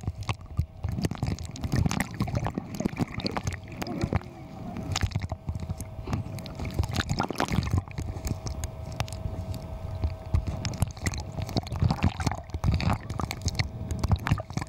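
Water sloshing and gurgling around an underwater camera, with many irregular clicks and crackles over a low rumble and a faint steady hum.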